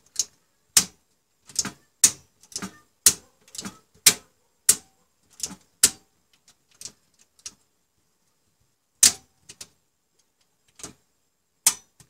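Siemens miniature circuit breakers' toggle levers being switched on and off by hand: a run of sharp snapping clicks, about two a second for the first six seconds, then a few scattered clicks.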